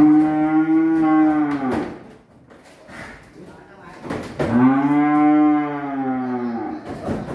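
Cattle mooing loudly: two long drawn-out moos, one at the start and another about four and a half seconds in, each lasting about two seconds.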